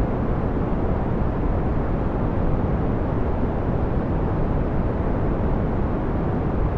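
Steady brown noise: an even, deep rush with most of its weight low down and little hiss up top, unchanging throughout.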